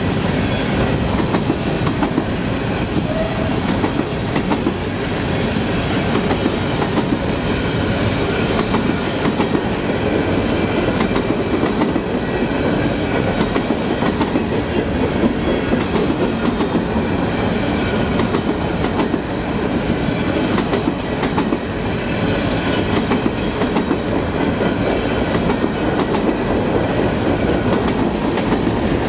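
CSX freight train's cars rolling past, steel wheels clattering steadily over the rail joints over a continuous rumble. Faint high squealing tones from the wheels run through it.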